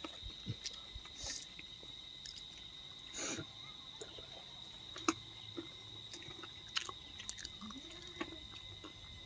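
Chewing and small scattered clicks of people eating biryani, over a steady high-pitched insect call.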